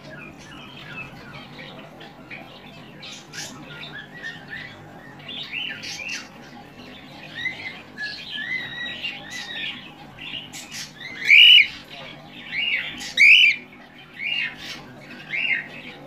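Cockatiel chirping and squawking in a run of short calls. They grow louder and more frequent in the second half, with the sharpest squawks a little past the middle.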